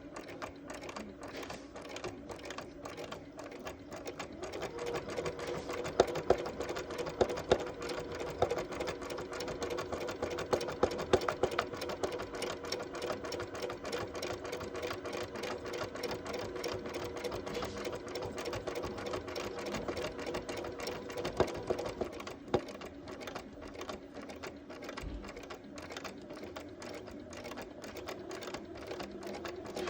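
Bernina 180 Artista sewing machine running continuously while free-motion quilting: a fast, steady patter of needle strokes over the motor's hum, getting louder about four seconds in.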